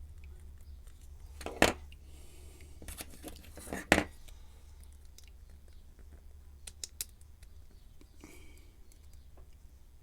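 Small metal clicks and scrapes of tools being jammed into a euro lock cylinder, with two sharp louder clicks about one and a half and four seconds in, a few lighter ticks later and a short scrape near the end, over a steady low hum.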